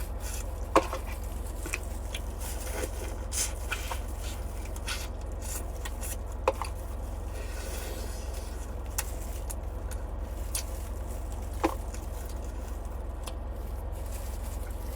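Eating garlic crayfish by hand: scattered sharp cracks and clicks of shells being broken and peeled, with small wet sucking and chewing sounds, over a steady low hum.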